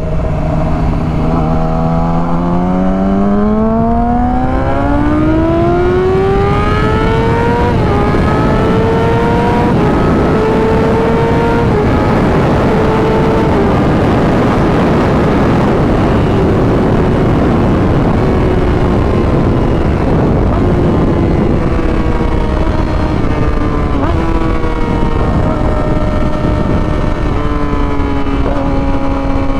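Yamaha R6 inline-four sport-bike engine accelerating hard. The revs climb steeply over the first several seconds, with quick gear changes about eight, ten and twelve seconds in, then hold high and slowly ease off. Wind rushes past throughout.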